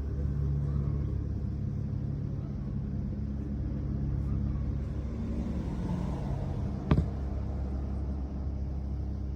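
Einhell Power X-Change 36/36 cordless lawnmower's brushless motor and blade running at a steady speed, with one sharp click about seven seconds in.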